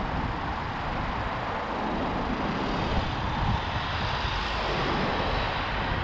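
Steady road noise of a car moving slowly in traffic: an even rush of tyres and wind with no distinct events.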